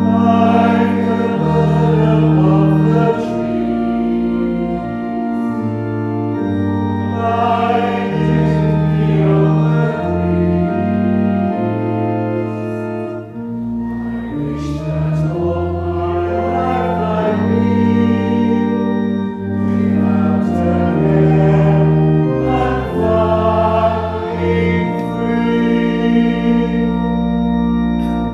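A congregation singing a hymn in unison with pipe organ accompaniment, the organ's held chords changing every second or two under the voices.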